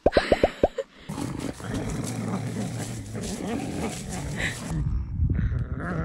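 A quick run of short popping sound effects, then border collies growling as they tug at a big stick between them.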